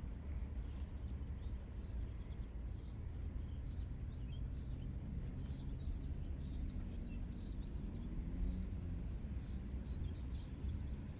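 Outdoor ambience: a steady low rumble with small birds chirping faintly throughout, and a faint wavering hum in the middle.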